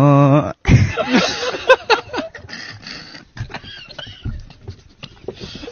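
A young man's sung note, held with vibrato, breaks off about half a second in. It is followed by a few seconds of irregular, breathy, squeaky sounds close to the microphone that thin out near the end.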